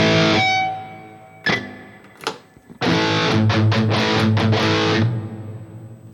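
Distorted electric guitar played through a NuX MG-30 modeling unit with reverb. A chord rings out and fades in its reverb tail, then come two short picked notes. About three seconds in there is a burst of rhythmic chord strumming, which stops near the end and dies away in the reverb.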